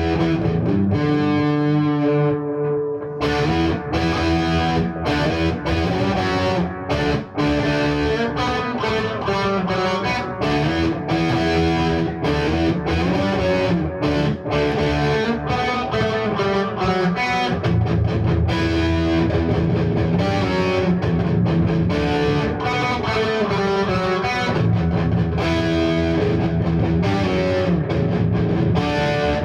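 Distorted electric guitar played through an Orange Dark Terror valve amp head, chugging heavy riffs with fast rhythmic picking and sustained low chords.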